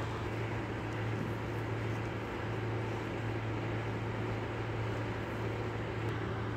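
A steady low hum over constant background noise, with no distinct clicks or knocks.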